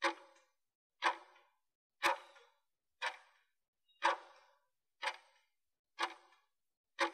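Countdown timer's clock-tick sound effect: eight short ticks, evenly one second apart, counting off the last seconds of a 20-second work interval.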